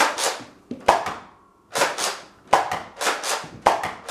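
Nerf Rival Hades, a spring-powered pump-action foam-ball blaster, firing shot after shot. About five sharp cracks come roughly one a second, each trailing off in a short rattle of the spring.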